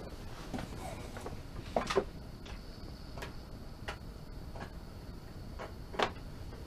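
Scattered light clicks and knocks, about eight at irregular spacing, the loudest about two seconds in and again near six seconds, from someone handling gear and cables while connecting a USB audio interface to a computer. A faint steady high-pitched tone sets in about two seconds in.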